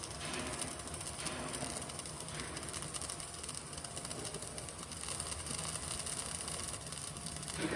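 CO2 MIG welding arc running steadily on a vertical-up (3G) weld, laying the third pass, with a continuous crackling hiss.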